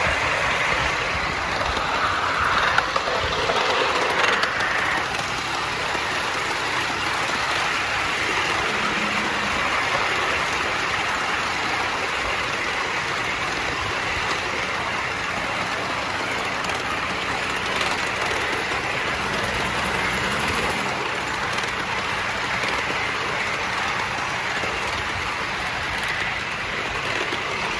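A 5-inch gauge live-steam model of the A1 Pacific Tornado running along a miniature railway track, heard from the driving position as a steady rushing noise.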